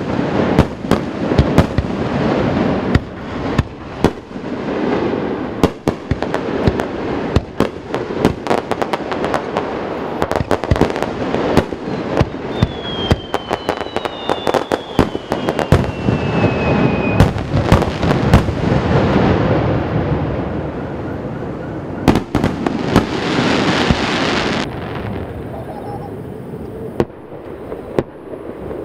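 Aerial fireworks shells bursting in a rapid, dense barrage of bangs and crackles, echoing off the surrounding mountains, with two falling whistles midway. About 25 s in the sound changes to fewer, more distant bangs.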